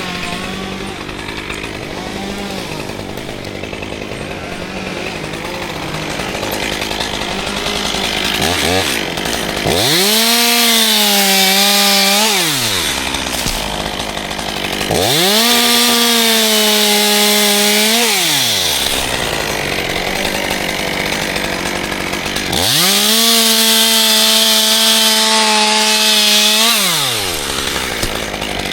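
Chainsaw engine revved up to full throttle three times, each held for a few seconds before dropping back to a lower running speed in between.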